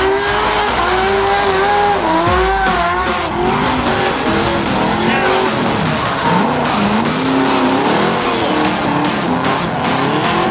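Modified drift cars sliding around the track, their engines revving up and down with pitch rising and falling over and over, and tyres squealing and skidding beneath.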